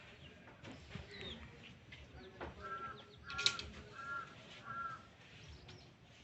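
An animal calling four times in a row in short, evenly spaced calls, each a brief arched note about two-thirds of a second apart, with a single sharp burst among them.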